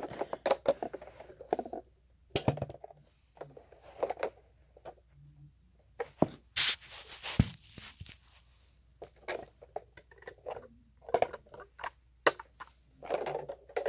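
Hands handling a plastic toy truck: scattered clicks, scrapes and knocks, with a louder scraping rustle about six and a half seconds in, followed by a low thump.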